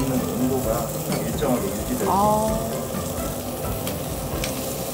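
Thick pieces of pork belly sizzling steadily on a hot cast-iron grill plate. A few light clicks near the end as the meat is handled and cut with metal tongs and scissors, and a brief pitched sound about two seconds in.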